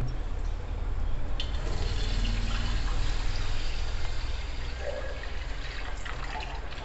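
Milk poured from a carton into a kadhai of hot ghee, a steady splashing pour, with a light click about a second and a half in.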